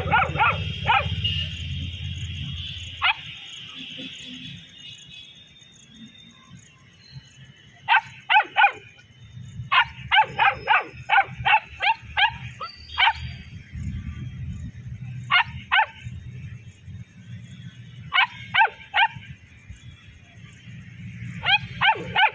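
Long-coated German Shepherd puppy barking in short, high-pitched yaps, in bursts of several quick barks at a time with pauses of a few seconds between them.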